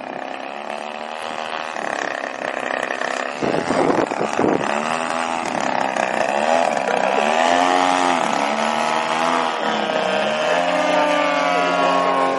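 Radio-control aerobatic plane's engine and propeller, its pitch rising and falling repeatedly as the throttle is worked through the manoeuvres. A rough, noisy stretch about four seconds in is the loudest moment.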